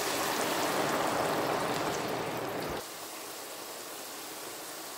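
Crinkle-cut french fries frying in a deep-fryer basket of hot oil: a steady bubbling sizzle that drops suddenly to a quieter, thinner hiss a little under three seconds in.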